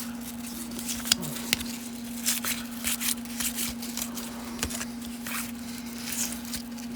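Baseball cards being handled: a series of short, quick scrapes and flicks as stiff cardboard cards slide and are flipped against one another, over a steady low hum.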